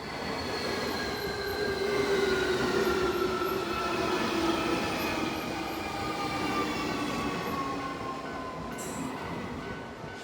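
Electric commuter train running and slowing down, its whine of several tones falling slowly in pitch over a steady rumble.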